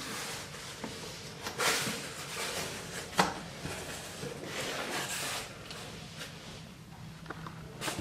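Packaging being opened and handled by hand: irregular rustling and scraping, with a sharp click a little past three seconds in.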